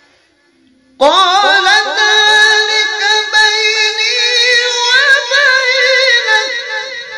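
A man chanting Quranic recitation in maqam Rast in a high register, unaccompanied. He begins the phrase "wa baynak" about a second in, with quick ornamental turns, then holds one long high note that fades near the end.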